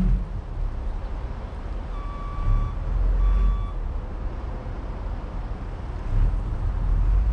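Heavy truck engine running low and steady, with two beeps of a reversing alarm a second apart, about two seconds in.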